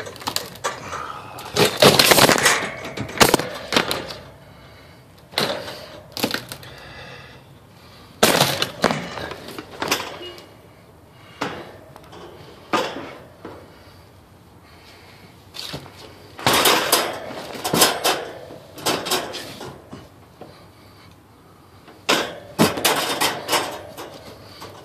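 Handling noise: rattling and scraping in about five spells of one to three seconds each, with quieter stretches between.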